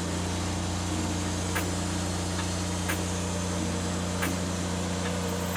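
Wood-Mizer LX150 band sawmill running steadily under power, its blade sawing along a poplar log, with a faint sharp tick about every second and a half.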